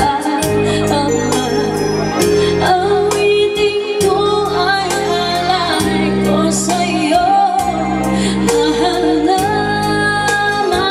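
Music with a female voice singing over held bass notes and a steady drum beat, played loud through an amplified sound system.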